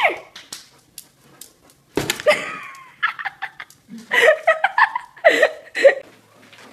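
A person laughing in quick bursts, with several sharp knocks and slaps.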